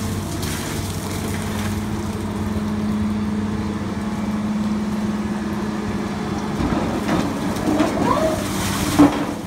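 Soilmec rotary piling rig running, its engine and hydraulics giving a steady drone. From about seven seconds in come irregular knocks and clatter, with one sharp knock near the end.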